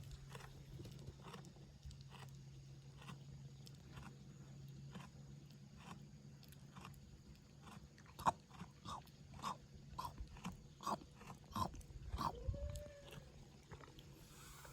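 A goat chewing up close: a series of short crunching clicks, coming steadily at about two a second in the second half, over a steady low hum.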